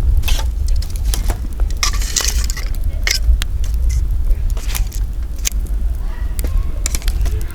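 Wood campfire crackling, with frequent sharp pops and snaps at irregular intervals over a steady low rumble.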